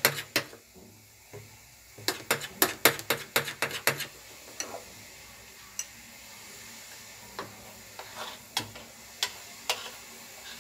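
A spoon stirring dhokla batter in a glass bowl, clinking quickly against the glass in two short runs, then a few single clinks as the batter is scraped and poured out.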